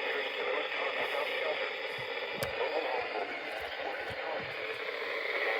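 Radio static: a steady hiss from a radio receiver, with a faint, indistinct voice under the noise.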